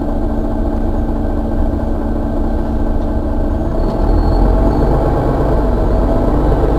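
Mercedes-Benz Citaro city bus engine idling steadily, heard from the rear of the stationary bus. About four seconds in, its low rumble grows louder.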